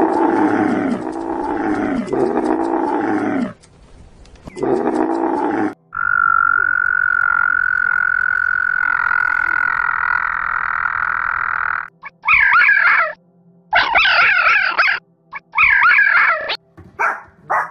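A camel's low calls, three in a row and then one more, followed by a frog calling with one steady, high, unbroken note for about six seconds. Near the end comes a series of short, wavering, high-pitched calls from a red fox.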